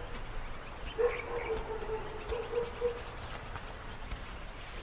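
Crickets chirping in a steady, fast-pulsing high trill. A faint wavering pitched call sounds from about one to three seconds in.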